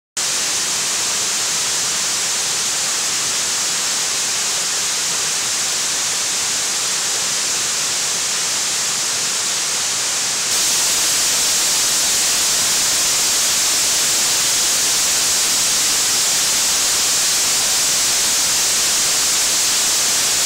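Tory Falls running high after flooding rain: a steady roar of water rushing and splashing down rock ledges. The sound steps up a little louder and brighter about halfway through.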